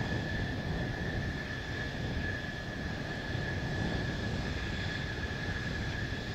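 Mitsubishi F-2 fighters taxiing, their General Electric F110 turbofans giving a steady high whine over a low rumble.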